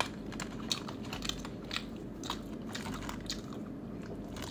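A person eating: chewing with scattered small clicks and crackles, several a second, at an irregular pace.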